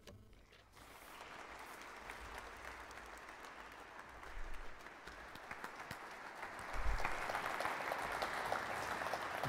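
Audience applauding, starting about a second in and growing louder toward the end.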